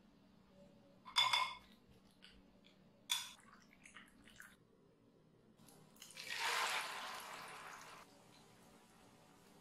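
Two sharp ringing clinks of a utensil against a ceramic bowl, with small stirring clicks. About six seconds in, a loud hiss and crackle as beaten egg with tomato and onion hits hot oil in a frying pan, fading and cutting off after about two seconds.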